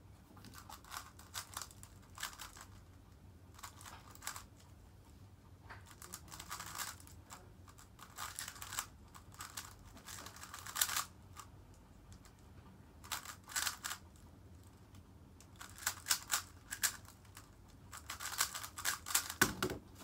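Plastic 3x3 speed cube being turned fast, in about eight bursts of rapid clicking and rattling broken by short pauses, with a soft thump near the end.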